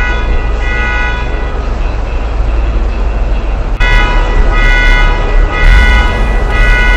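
Police van sound effect: a steady low engine rumble under a siren whose high tone switches on and off about once a second, getting louder and fuller about four seconds in.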